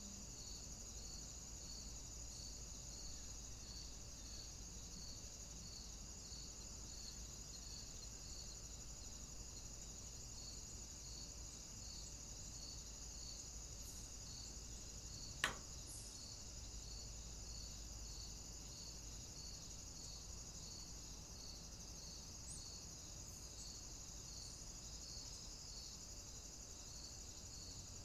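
Steady high-pitched electronic hiss from the trail camera, with a faint pulse repeating about one and a half times a second, and a single sharp click about halfway through.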